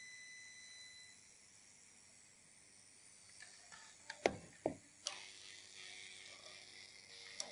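Homemade plasma speaker's high-voltage arc sounding: faint steady tones, then two sharp falling sweeps about four seconds in, followed by a crackling hiss with scattered clicks and a low steady tone.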